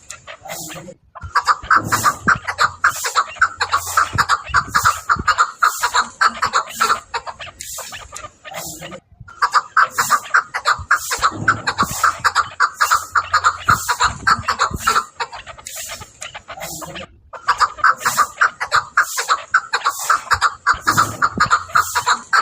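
Chukar partridge calling: long runs of rapid, repeated clucking notes, in three bouts with short breaks between them.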